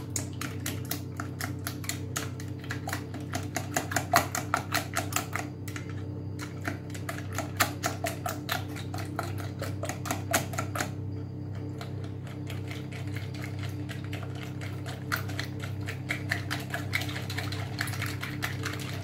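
Wire whisk beating eggs and yogurt in a bowl by hand: rapid clicking strokes of the wires against the bowl. The clicking comes in three bouts, with a short pause about six seconds in and a longer one from about eleven to fifteen seconds.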